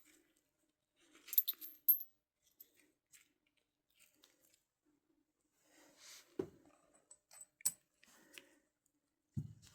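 Small brass compression fittings being handled, with metal clinking against metal in two short spells and a few dull knocks.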